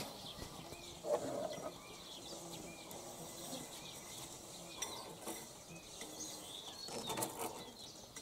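Faint outdoor ambience: small birds chirping, with a few light knocks and clicks.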